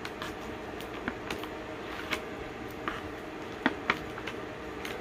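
Bath bombs being handled and put back into their packaging: scattered light knocks and clicks, with two louder knocks close together about three-quarters of the way through, over a low steady hum.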